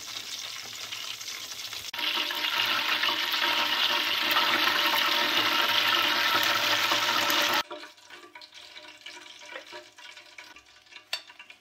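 Seekh kababs deep-frying in hot oil in a steel pan: a steady sizzling hiss that gets louder about two seconds in and cuts off suddenly about two-thirds of the way through. After that, only faint light clicks.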